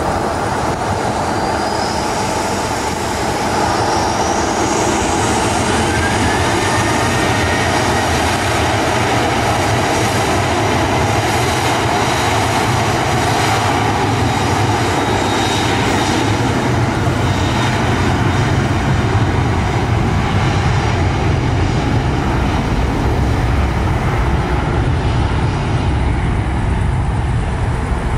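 Jet engines of a Lion Air Boeing 737 spooling up to take-off thrust: a rising whine over a steady loud rumble, stepping up in loudness about three seconds in, then running steady at full power through the take-off roll.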